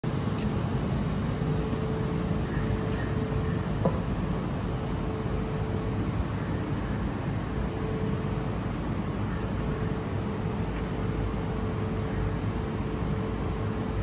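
Steady low mechanical hum with a faint steady tone that comes and goes, and a few light clicks.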